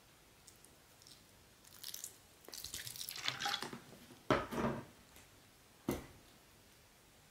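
Wet kitchen sounds around a stainless steel mixing bowl of gyoza filling (ground pork and chopped napa cabbage): scattered soft drips and trickles, a longer run of them a few seconds in, then a dull knock about four seconds in and a short sharp one near six seconds.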